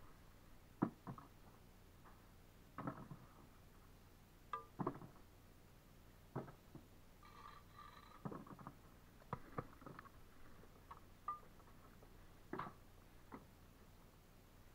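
Faint, irregular taps, clacks and scrapes of bricklaying by hand: a steel trowel scraping mortar and reclaimed bricks knocking as they are picked up, buttered and set in the wall. A brief higher squeak comes about halfway through.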